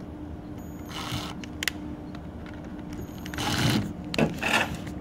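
Handling noises while driving a screw to fasten the cord clamp on a grinder housing: a few short scrapes and clicks, the loudest near the end, over a steady low hum.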